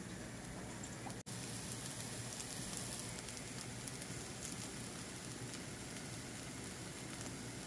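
Corn batter pancake frying in oil in a nonstick pan: a steady sizzle, broken by a brief gap about a second in.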